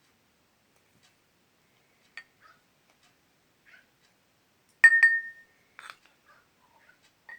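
A spoon clinking against a dish: a few faint light taps, then two sharp clinks about five seconds in, the second ringing briefly, then a few more light taps.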